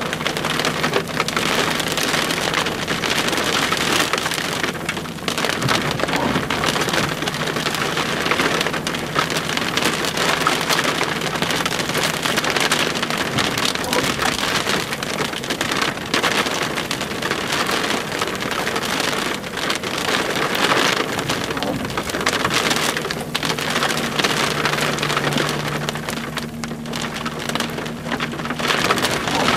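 Rain falling steadily and loudly, a dense hiss flecked with the ticks of individual drops. A faint low steady hum joins in during the last few seconds.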